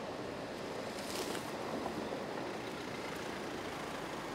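Opel Combo Cargo 4x4 van with its 130 hp diesel driving slowly over a dirt track, heard from outside: a steady engine and rolling noise.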